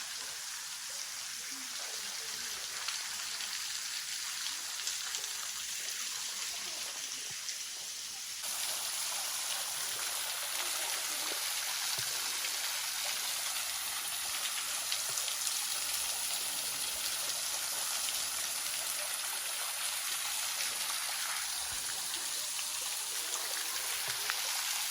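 Butuase waterfall's flow, reduced in the dry season, splashing down in a steady hiss of falling water that steps up in level about eight seconds in.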